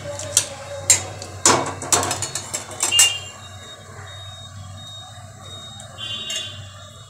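A metal spatula knocks and scrapes in an aluminium kadai, with several sharp clicks in the first three seconds. After that comes a steady, even sizzle of whole cumin seeds and a bay leaf frying in hot oil.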